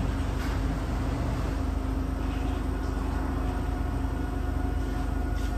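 Steady low mechanical hum with a constant tone running through it, unchanging throughout.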